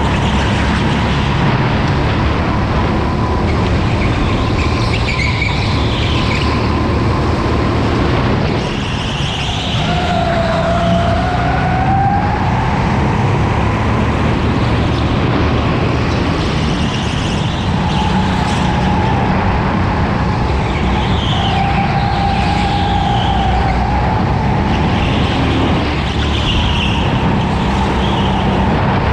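Racing go-kart at speed, heard from its onboard camera: a steady drive noise with a motor tone that rises and falls as the kart speeds up and slows for corners, and brief tyre squeal as it turns.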